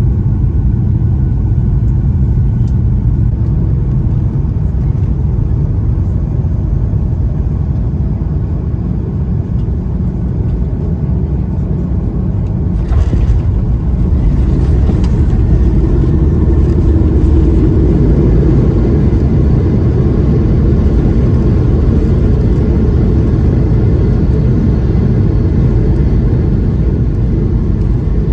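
Boeing 737-800 heard from the cabin during approach and landing: a steady low rumble of engines and airflow, which grows louder from about 13 seconds in after a brief rattling hiss.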